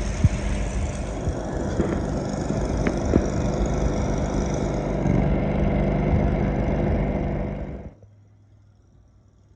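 An engine running steadily, with scattered sharp knocks and clanks over it, cutting off suddenly about eight seconds in and leaving only a faint low hum.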